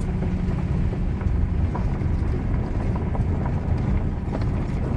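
Vehicle driving on a rough dirt road, heard from inside the cabin: a steady low rumble of tyres and engine, with scattered light knocks and rattles from the uneven surface.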